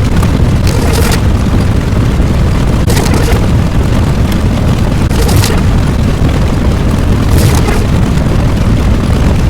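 Loud, continuous low rumble like a long explosion or eruption sound effect, with hissing surges about every two seconds.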